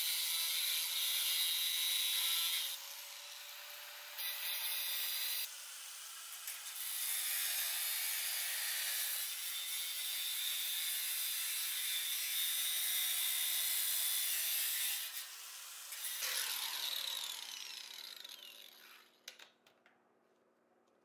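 Steady abrasive rubbing and grinding from tool work on metal, a dense hiss in several stretches that break off abruptly. It fades away near the end.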